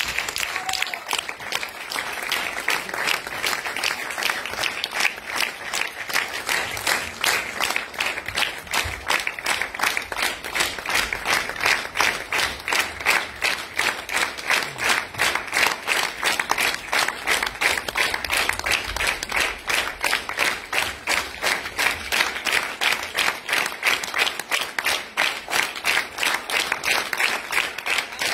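Theatre audience applauding in unison, a steady rhythmic clapping about three to four claps a second.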